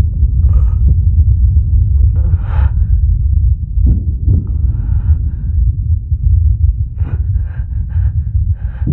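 A man's heavy, ragged breathing with gasps, quickening into several short breaths in a row near the end, over a loud, steady low rumble.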